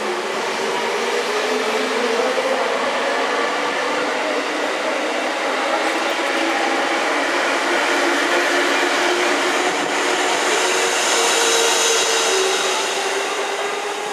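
A JR East 651 series electric multiple unit pulling out of the station and running past: a steady hum from its motors over the running noise of wheels and bogies. The sound grows a little louder and brighter about ten seconds in, then eases off as the last cars move away.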